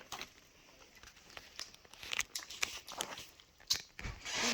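Plastic snack packaging crinkling and rustling in short, scattered bursts, with a longer rustle near the end.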